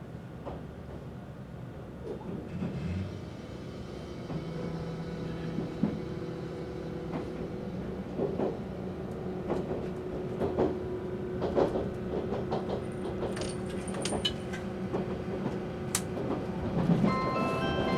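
JR Shikoku 8000 series electric limited express running, heard inside the passenger car: a steady rumble with a few steady hums and scattered sharp clicks and knocks. Near the end, the bell-like JR Shikoku announcement chime begins.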